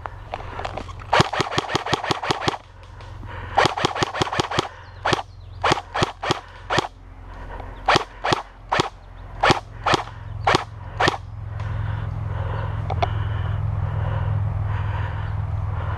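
King Arms Thompson airsoft electric gun (AEG) firing two short rapid full-auto bursts, then a string of single shots about half a second apart. A steady low hum follows from about twelve seconds in.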